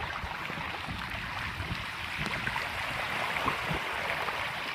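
Floodwater rushing and splashing steadily.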